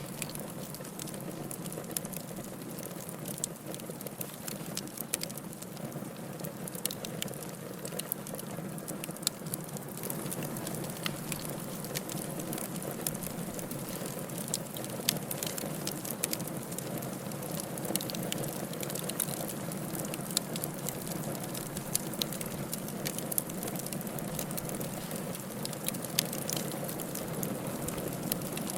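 Firewood burning in a fireplace: a steady rush of flames with frequent small, sharp crackles and pops, a few of them louder.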